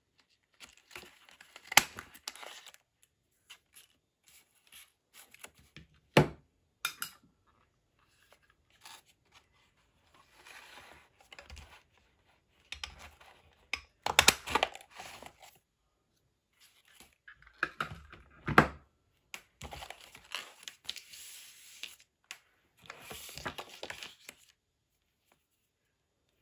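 Handheld craft paper punch snapping shut through patterned paper scraps several times, with paper rustling and crinkling between the punches.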